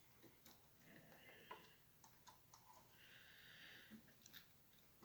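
Near silence with scattered faint small clicks and two brief faint hisses.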